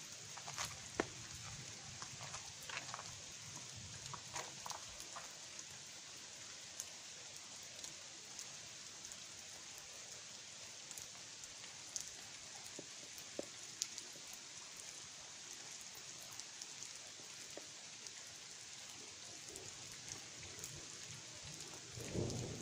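Faint steady hiss of wet ground just after rain, with scattered soft taps and ticks, most of them in the first few seconds, from footsteps on wet pavement.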